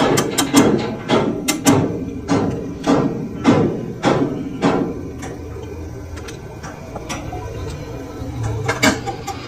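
Sharp metallic clanks and knocks of a chuck key working the jaws of a stopped lathe chuck to clamp a thin metal ring, several a second for the first half, then quieter, with a few more knocks near the end.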